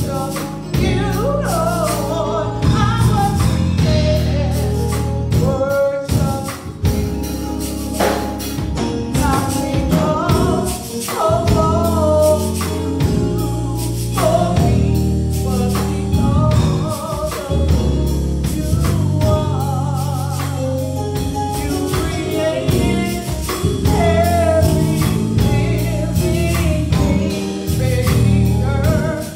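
Gospel praise team of several singers singing together into microphones, over bass and percussion keeping a steady beat.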